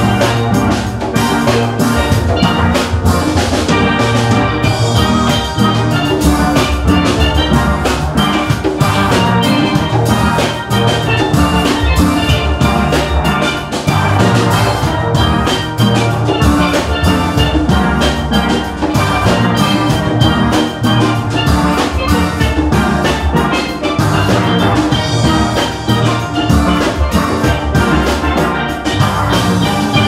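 A steel band playing: many steelpans struck with mallets, from high lead pans to larger low pans, in a dense steady rhythm over drums.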